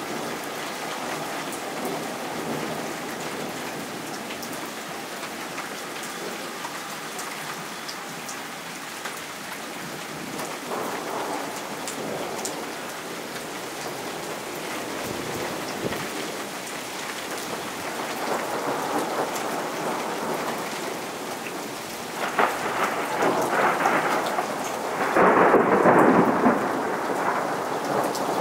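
Steady rain falling during a thunderstorm, with thunder rolling in and building toward the end; the loudest peal comes a few seconds before the end.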